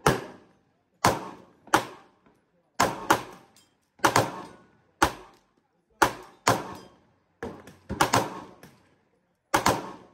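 Pistol shots on a range firing line: about a dozen sharp cracks in ten seconds, irregularly spaced and some louder than others, each trailing off in a short echo.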